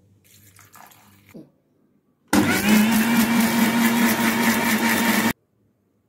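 Electric mixer grinder running in short bursts for about three seconds, blending guava pieces with honey in its steel jar: a loud, steady motor hum that starts and cuts off suddenly. Before it, a brief soft clatter.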